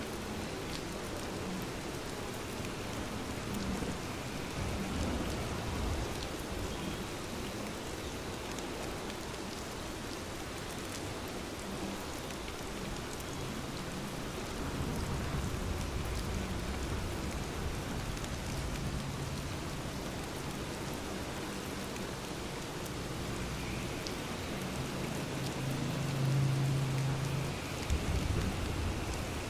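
Steady rain falling, with a few low rumbles swelling up and fading, the loudest near the end.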